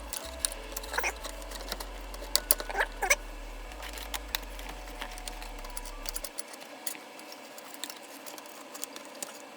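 Scattered light clicks, taps and brief scrapes of plastic and metal as an AMD stock CPU cooler is set down on the processor and its side metal clips are hooked onto the motherboard's mounting brackets.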